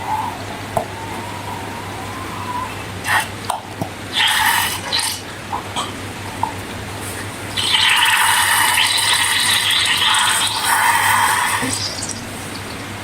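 Slime and a rubber balloon being worked by hand: wet, sticky squishing in short bursts, then a longer squelching stretch, with a faint rubbery squeak early on.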